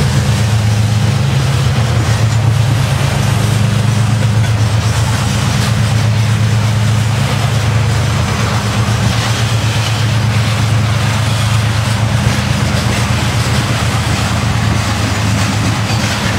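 Heavy diesel locomotive engine working hard as it hauls a freight train away, a steady low drone over the noise of the wagons rolling on the rails.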